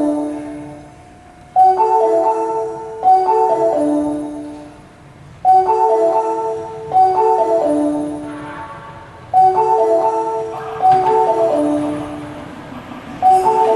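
A short marimba-like chime phrase of a few notes repeating about every four seconds, a looping platform melody over station speakers. From about eleven seconds in, a rising rushing noise joins it.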